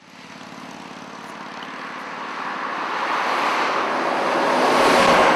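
Truck on a highway approaching, its engine and tyre noise growing steadily louder until it passes close near the end.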